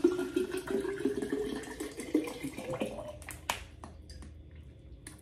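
Water pouring from a plastic bottle into the narrow mouth of an insulated water bottle, a continuous stream that slowly gets quieter toward the end. A few sharp clicks come about three seconds in.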